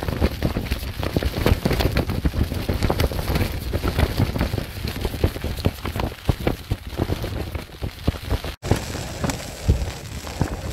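Rain pattering on a tarp shelter's fabric in a dense, irregular spatter, with wind rumbling on the microphone. After a brief break near the end, a steak sizzling in a frying pan on a camping stove.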